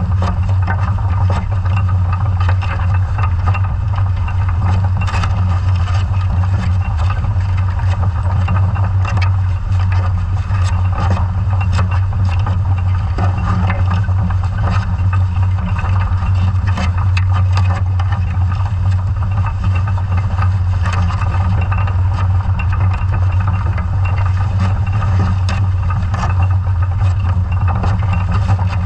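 Underwater noise on a towed scallop survey dredge: a steady low engine drone, typical of the towing vessel's engine and propeller carried through the water and tow wire, with scattered irregular clicks and knocks.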